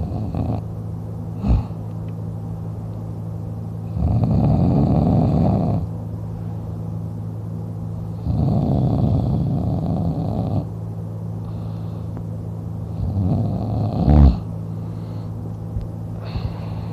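A man snoring in deep sleep, lying on his back with his mouth open: long rasping snores come about every four seconds, three full ones, with breaths between. The third ends in a short, sharp peak, the loudest moment. A steady low hum runs underneath.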